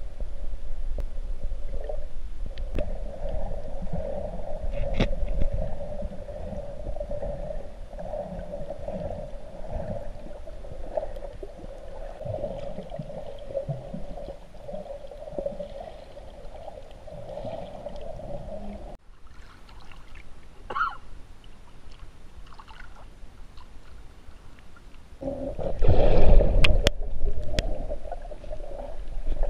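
Muffled underwater sound picked up by a camera held underwater while snorkeling: a steady low drone with water gurgling and rumbling. A louder surge of rushing water with a couple of sharp clicks comes a few seconds before the end.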